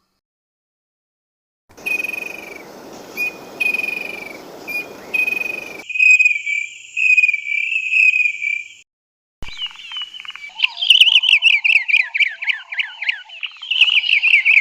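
Three different wild bird calls in turn: a series of short repeated whistles over a background hiss, then a fast chattering run of notes, then after a short pause a rapid series of sharp falling notes over a lower churr.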